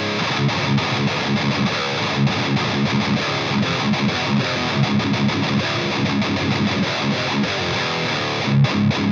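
Heavily distorted electric guitar, a Solar A1.6 tuned to D, played through an EVH 5150 III LBX valve amp head: a continuous heavy riff of quick picked notes with low chugs, with a louder flurry near the end.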